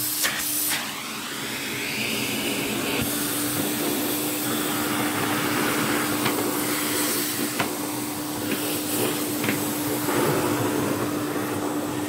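Electrolux vacuum cleaner running steadily, a hose and long crevice tool sucking dust out of a cloth vacuum bag. A steady motor hum sits under the rush of air, which changes a few times as the nozzle is worked about inside the bag.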